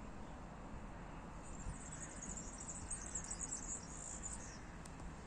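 High-pitched, rapid chirping trill from a small animal, starting about a second and a half in and stopping near the end, over a steady low outdoor rumble.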